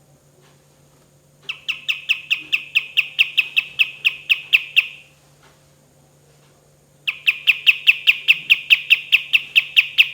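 Kapas tembak songbird calling in two long runs of rapid, evenly repeated sharp notes, about five a second, each run lasting about three seconds, the second starting about seven seconds in. A faint steady low hum runs underneath.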